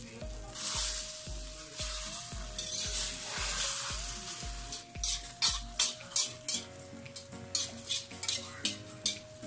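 Eggs sizzling as they fry in a nonstick pan over a strong gas flame, while a spatula scrapes and taps the pan. The scraping and tapping get sharper and more frequent in the second half.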